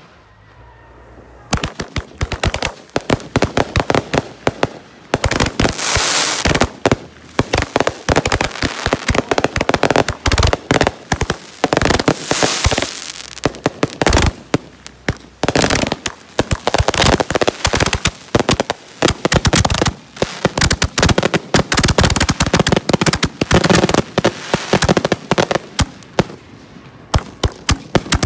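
Ground-level fireworks firing in a rapid, unbroken barrage of bangs and crackle, starting about a second and a half in, with a few denser swells.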